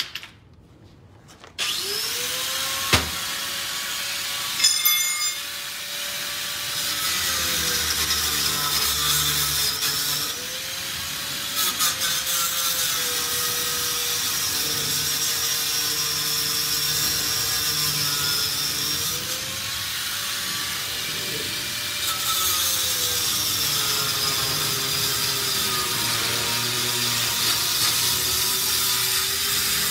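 Angle grinder starts about a second and a half in and then runs on, cutting into the steel safe door of an ATM beside the lock. Its motor whine sags in pitch and recovers again and again as the disc is pressed into the metal.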